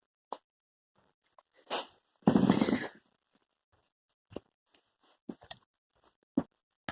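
A dog hiccuping: about half a dozen short, sudden hiccups at uneven gaps of roughly a second. About two seconds in there is a longer, louder sound of under a second.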